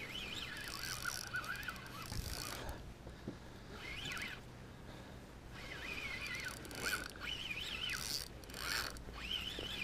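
Savage Gear SG8 4000 FD spinning reel being cranked in spells, a whirring with a wavering whine, as a hooked fish is reeled in on a bent rod.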